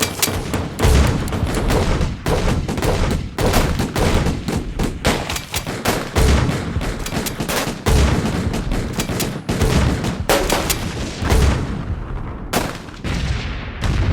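Dense gunfire: many overlapping shots in a continuous, irregular volley, with heavier low booms mixed in every second or so.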